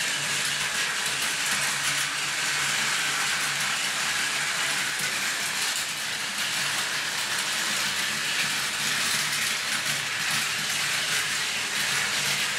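Two battery-powered Plarail toy trains running on plastic track: a steady whir of their small motors with the fine rattle of wheels over the rail joints.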